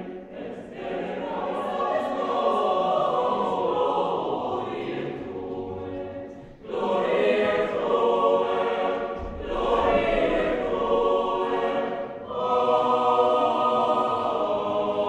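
Many young voices singing together as a choir in a reverberant stone church. The singing comes in long held phrases, with brief breaks about six and a half and twelve seconds in.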